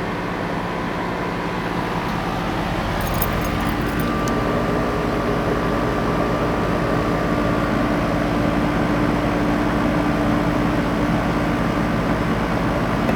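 A 3-ton R410a air-conditioning condensing unit running steadily: compressor hum and condenser fan noise, with a few steady tones. It gets slightly louder a few seconds in, when a higher tone joins.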